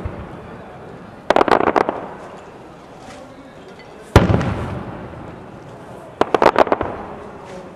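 Japanese 6-inch (No. 5) aerial firework shells bursting overhead. A sharp bang about four seconds in rumbles away slowly. Twice, a rapid cluster of about eight small pops crackles within half a second, once near the start and once near the end.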